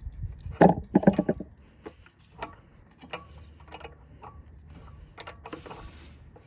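Wrench clicking on the lock nut and Allen-key adjuster of a pressure washer pump's unloader valve as the nut is loosened and the adjuster backed out to take tension off the spring. There are two louder clinks about a second in, then scattered light ticks.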